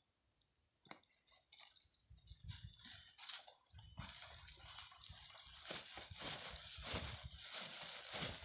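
Rustling and crackling of grass and leaves with dull handling knocks as a wire-mesh snake trap is pulled about in the undergrowth, starting with a few clicks and building to a steady, louder rustle about four seconds in.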